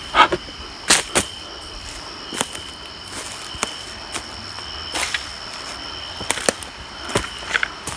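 Night insects chirp steadily at two high pitches, while footsteps scrape and knock irregularly on rocks.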